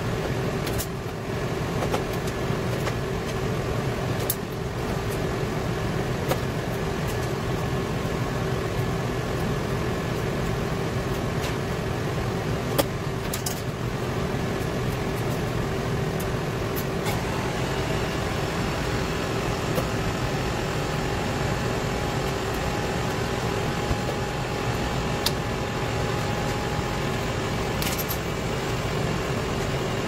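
Steady drone of a Liebert precision cooling unit running, its airflow carrying a constant hum. A few brief clicks and taps come through it, from hands and tools working on contactor wiring in the open electrical panel.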